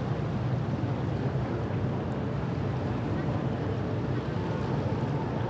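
Steady low rumble of boat engines on a harbour, under a constant wash of city and water noise.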